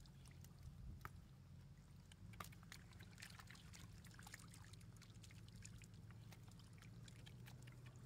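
Faint small splashes and wet squelches of hands and fish moving in shallow muddy water, irregular throughout, over a steady low hum.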